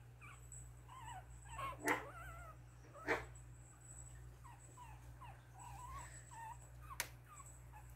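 Three-week-old Pomeranian puppies making many short, wavering squeaks and whimpers, with two louder, sharper cries about two and three seconds in. A single sharp click comes near the end.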